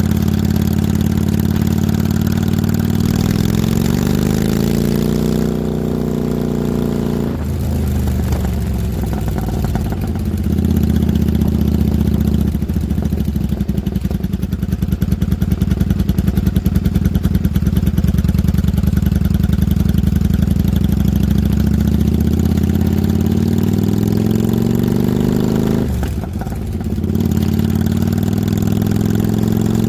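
A 1995 Kawasaki Vulcan 750's V-twin engine running under way. The revs climb for a few seconds, fall sharply about seven seconds in and hold steady for a long stretch. They drop briefly again near the end, then climb once more.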